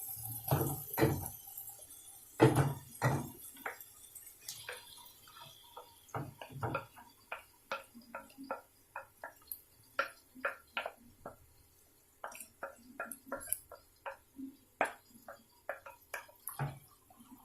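A spoon clicking and knocking against a cooking pan in an irregular series, with a few heavier thumps near the start: chicken pieces are being added to the softened tomatoes and stirred in.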